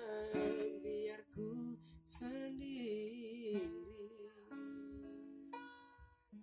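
Acoustic guitar being picked, with a man's voice singing softly along. Near the end held notes ring out and fade.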